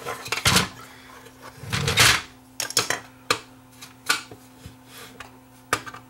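Screwdriver working screws out of the Panasonic DVD-S35's sheet-metal chassis: scattered clicks and taps of tool on metal, with a louder scrape about two seconds in. A faint steady hum runs underneath.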